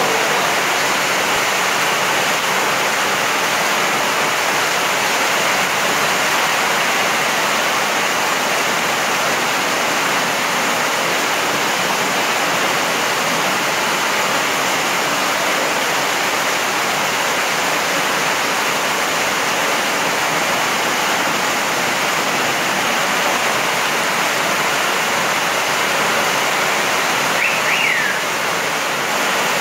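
Heavy tropical rain pouring down steadily, a dense even hiss of water with no letup.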